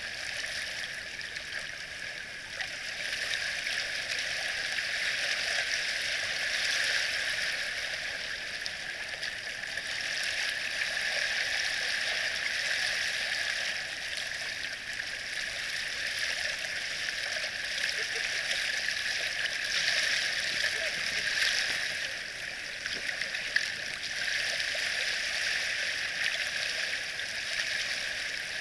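Small waves lapping and washing over a pebble beach: a steady watery hiss that swells and eases every few seconds.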